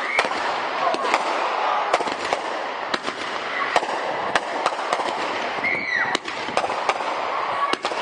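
Display fireworks going off in rapid succession: many sharp bangs and crackles over a dense continuous rumble of bursts, with a short falling whistle about six seconds in.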